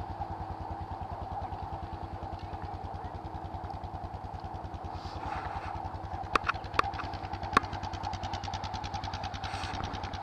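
YMC Highlander 500cc ATV engine idling steadily with an even pulse, and a few sharp clicks a little past the middle.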